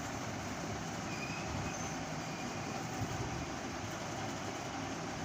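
Steady background rumble and hiss that starts abruptly and stays even throughout, with no clear meow.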